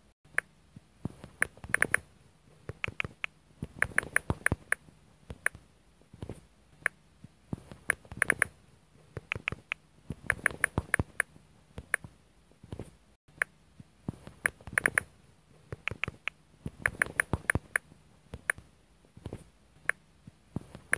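Facebook Messenger typing sound effect: bursts of quick, light clicks, a handful at a time, coming about once a second with short gaps between them.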